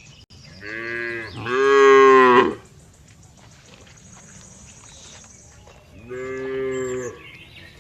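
Cow mooing: one long moo, louder in its second half, then a second, shorter moo near the end.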